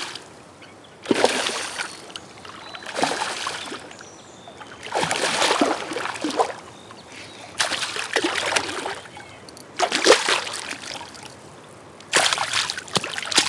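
A hooked smallmouth bass splashing at the surface of shallow river water as it is brought in, in about six bursts of splashing roughly every two seconds.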